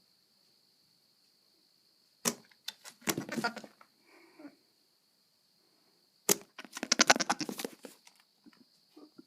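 Goat making two bursts of rapid rattling, sputtering noise a few seconds apart, each starting with a sharp click. A fainter grunt follows the first burst.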